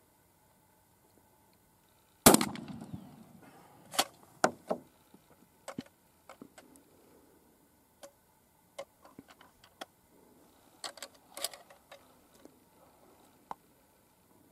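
One 12-gauge shotgun shot about two seconds in, with a short echoing tail. A few sharp clacks of the gun's action follow, then scattered lighter clicks as the shotgun is handled.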